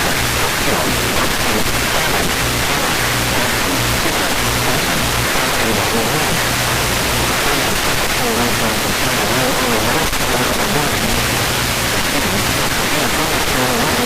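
Steady radio static: loud hiss from a radio receiver with no clear signal, with faint, indistinct speech-like sound buried in the noise.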